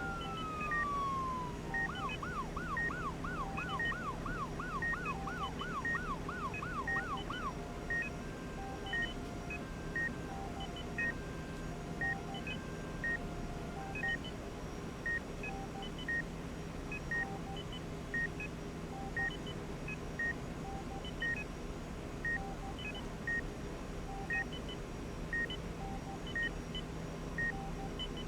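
Hospital ambience: medical equipment beeping steadily about once a second over a low, steady machine hum. A siren is heard in the first few seconds, first as a falling wail, then as a fast warbling yelp that stops about seven seconds in.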